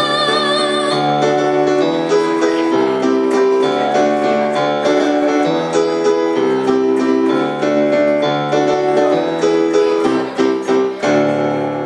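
Casio Privia digital piano playing a chordal instrumental passage, after a woman's held sung note with vibrato ends about a second in. The playing grows a little quieter near the end.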